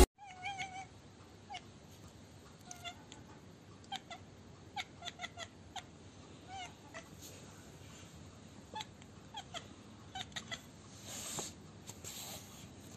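Domestic cat giving a string of short, quiet chirping calls, about a dozen at irregular intervals, with a brief soft rustle near the end.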